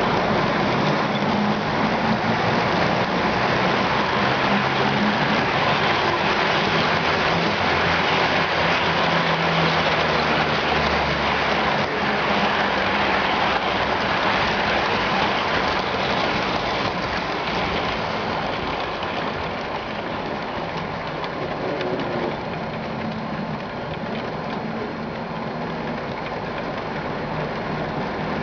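HO-scale model trains running on the layout: a steady rolling rattle of wheels on track with a low motor hum, easing off a little about two-thirds of the way through.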